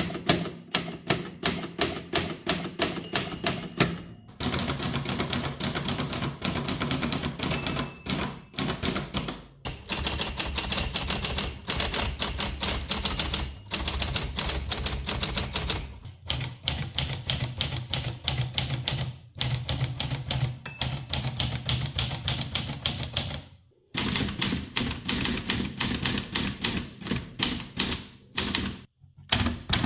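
Typewriters being typed on: rapid, irregular clacking of the typebars striking the platen. It is several different machines in succession, each change marked by a brief gap in the typing.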